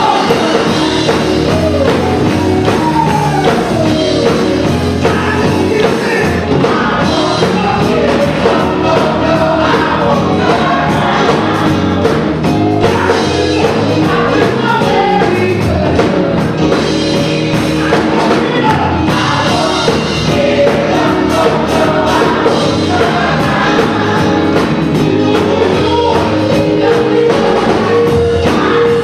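Gospel choir singing with a live band, drums and instruments playing steadily under the voices.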